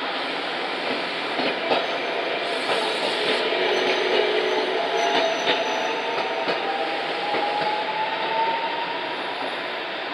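Toyohashi Railway streetcar wheels squealing on a tight curve, a thin squeal that rises slowly in pitch over several seconds, over the steady rumble of the tram rolling along the rails. Scattered clicks come from wheels running over the track joints and crossings.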